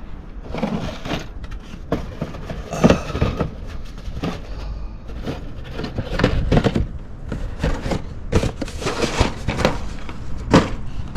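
Handling noise from sorting through a box of small plastic model-kit parts: irregular rustling and light clicks and knocks, with no steady or pitched sound.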